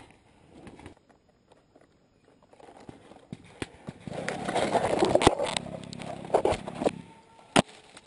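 Dry leaves, twigs and brush rustling and crackling as a crouching player shifts through the undergrowth, starting about halfway through and dying away near the end, with scattered small clicks and one sharp crack near the end.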